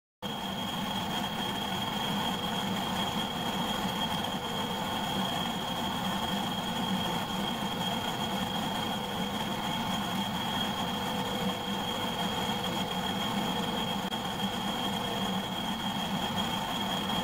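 Metalworking lathe running steadily: an even mechanical drone with a constant high whine, starting just after a moment of silence.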